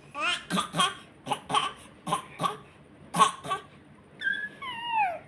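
An animal calling: a run of about eight short, harsh, cough-like cries, then two long high-pitched cries that fall in pitch near the end.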